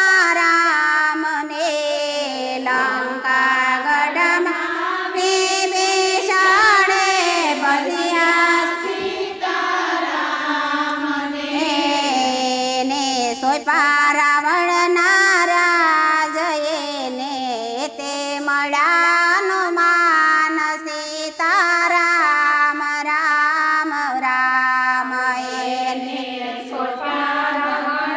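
Women singing a Gujarati devotional kirtan (bhajan) in high voices, one continuous flowing melody line.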